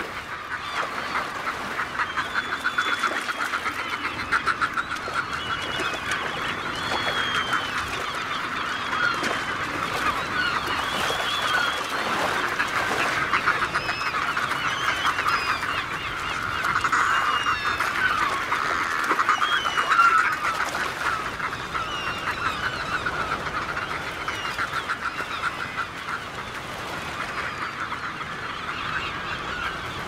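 A large flock of fulmars and albatrosses squabbling over food on the water: a dense, continuous cackling chatter with many short higher squeals over it, swelling a little past the middle.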